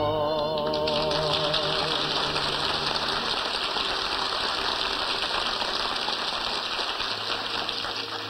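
A singer's held final note with the orchestra ends about a second in, and an audience bursts into applause that fades away near the end.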